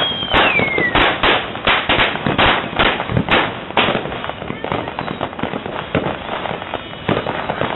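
Firecrackers and fireworks going off in a rapid, irregular string of bangs, about two a second, then a denser run of smaller cracks. In the first second a whistling firework's high tone glides down and fades.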